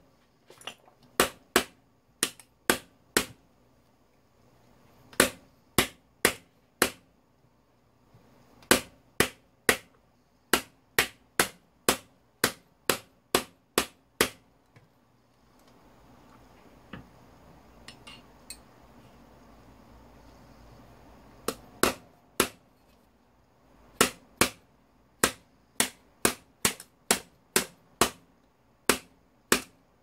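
Hammer striking a steel punch on an old wall fan's electric motor housing, knocking out the fasteners that hold the casing together. The blows are sharp metallic strikes in quick runs of three to eight, with a pause of several seconds in the middle where only small handling sounds are heard.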